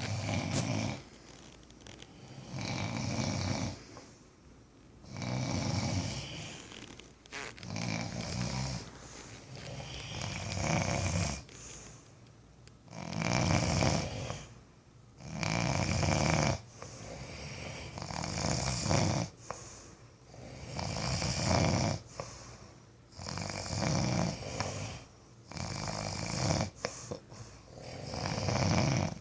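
Two sleepers snoring in turn, their snores overlapping and alternating, a snore every second or two.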